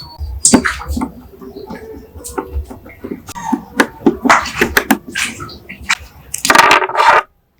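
Hand work on metal gun parts: a quick run of clicks, knocks and scrapes, with a louder rasping stretch near the end that cuts off suddenly.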